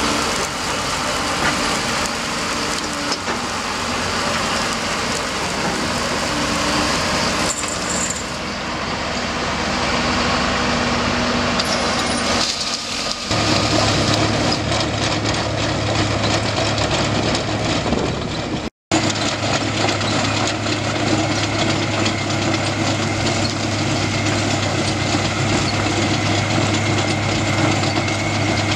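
Diesel engines of a John Deere tractor and a tracked drainage trencher running steadily, with gravel pouring from a hopper into the drain trench. About 13 s in the sound changes to a steadier low engine hum, and it cuts out for a moment a little before 19 s.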